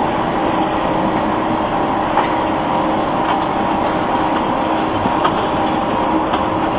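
Block-plant machinery, a pan mixer churning damp concrete mix and a belt conveyor, running steadily with a constant motor hum and a few faint ticks.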